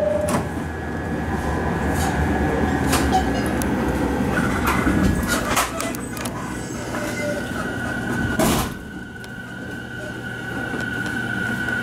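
Electric commuter train pulling out of an underground station and picking up speed, heard from inside the car: low running rumble with scattered clicks. A steady high motor whine grows stronger through the second half, and there is a brief loud rush about eight and a half seconds in.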